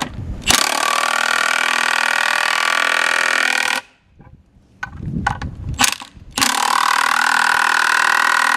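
Impact wrench driving screwbolts into a railway sleeper. There are two steady runs of about three seconds each, one per bolt, with a few short knocks between them as the socket goes onto the next bolt.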